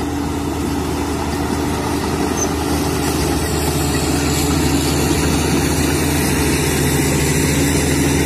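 Crawler bulldozer's diesel engine running steadily under load as its blade pushes soil, a constant low drone.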